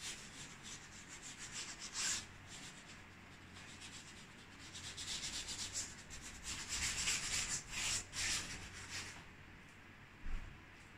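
A hand rubbing paint across a stretched canvas: quick repeated scratchy strokes in two runs, the louder one from about four to nine seconds in. A short knock near the end.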